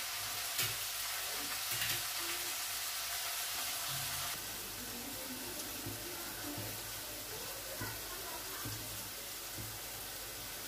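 Chopped carrots, green beans and capsicum sizzling steadily in a stainless steel kadai, easing slightly a little over four seconds in, with a few faint clicks.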